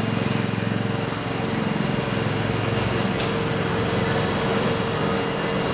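EF64 electric locomotive standing with its pantograph raised, its on-board machinery running with a steady hum and a constant whine over a broad rushing noise.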